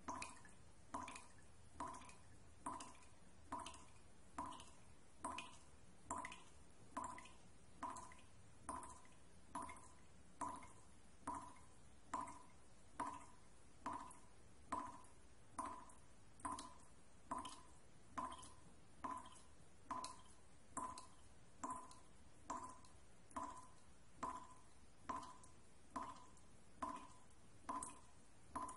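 A steady, evenly spaced pulse of short drip-like pitched tones, a little more than one a second, used as a soundtrack beat.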